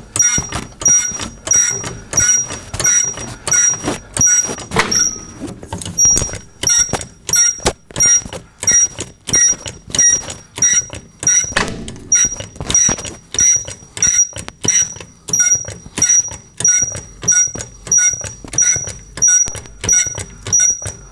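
Hydraulic floor jack being pumped at about two strokes a second, each stroke giving a knock with a high metallic ring, as it lifts the lower control arm and compresses a front coil spring. The pumping stops briefly about five seconds in, then resumes.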